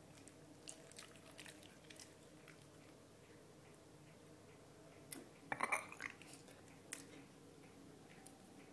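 Dogs chewing lettuce: scattered crisp crunches, with one louder burst of crunching about five and a half seconds in.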